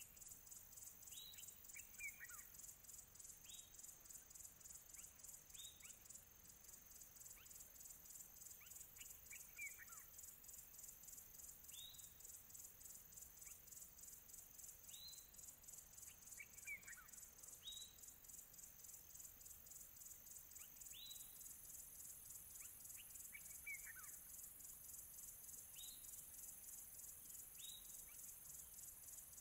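A steady, high-pitched insect chorus pulsing rapidly throughout, with a bird giving short whistled calls that slide downward every two or three seconds, sometimes two or three in quick succession.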